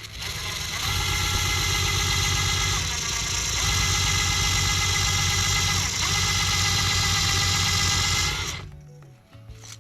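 A small motor running steadily for about eight seconds, with a brief dip in pitch twice, then stopping.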